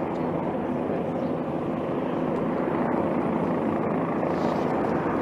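Helicopter flying, a steady drone of rotor and engine with no breaks.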